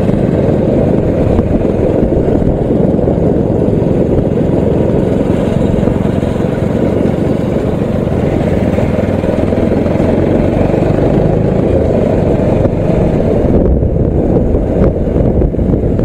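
Motorcycle riding at a steady pace: the engine running under wind rush on the rider's microphone, a loud, even rumble.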